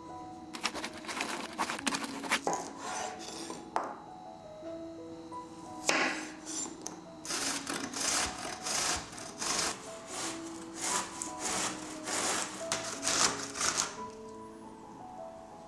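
Zucchini being grated on a metal grater: runs of quick, repeated scraping strokes that pause twice, over background music.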